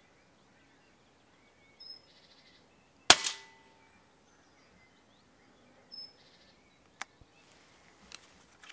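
A single shot from a Daystate Red Wolf PCP air rifle about three seconds in: a sharp crack with a short ring, which the shooter takes for a precise headshot on a rabbit. Faint bird chirps come before and after it, and a few light clicks follow near the end.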